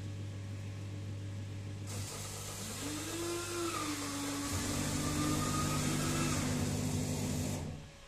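Coffee vending machine making a milky coffee: a steady machine hum, then about two seconds in a loud rushing noise with a wavering whine as the drink is mixed and dispensed into the cup. It cuts off suddenly shortly before the end.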